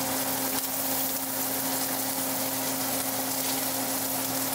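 Ribbonfish steaks sizzling in hot oil in a frying pan, a steady hiss over a steady low hum.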